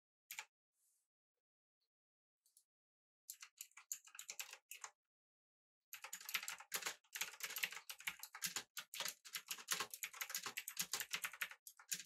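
Typing on a retro typewriter-style mechanical keyboard with clicky blue switches. A single keystroke comes near the start, a short burst of keystrokes after about three seconds, then continuous fast typing from about six seconds in.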